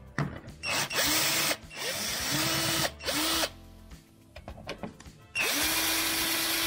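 Power drill with a socket extension spinning in several short bursts, each whine rising in pitch as it spins up, then one longer run near the end: backing out the bolts that hold the bumper's underside cover.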